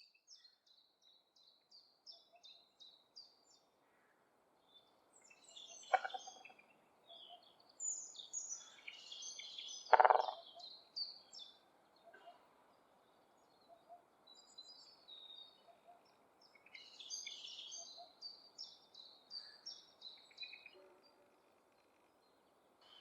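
Woodpecker drumming its beak on a dry branch in two short rolls, about six and ten seconds in, the second louder, with the branch ringing under the blows. Small songbirds sing series of high, repeated notes in between.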